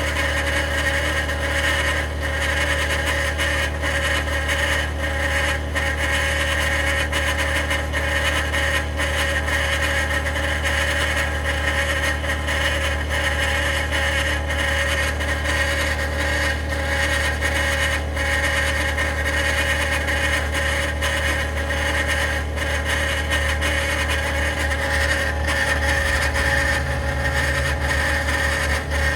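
2021 Ford F-150 PowerBoost running steadily after a cold start, with a constant droning, grinding noise that the owner describes as cavitating.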